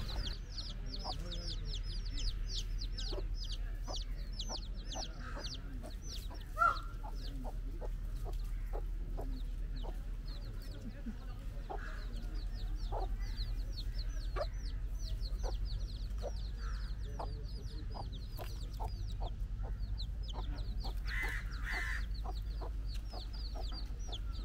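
Chicks peeping in quick, high, falling chirps, several a second, in three long runs, while a hen clucks low and short among them. One louder short call comes about six and a half seconds in.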